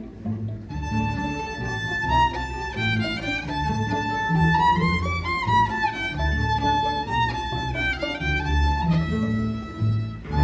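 Violin playing a slow improvised melody: held notes that climb step by step to a peak midway and step back down, beginning just under a second in. Low-pitched notes sound beneath it throughout.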